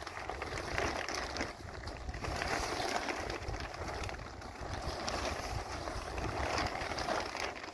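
Large plastic tarp crinkling and rustling irregularly as it is unfolded and lifted by hand, over a low rumble of wind on the microphone.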